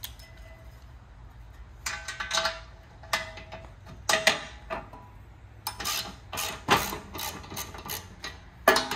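Ratchet wrench with socket and extension working nuts off a van seat's steel base: short runs of ratchet clicking and metallic clinks, coming in separate bursts over a low steady hum.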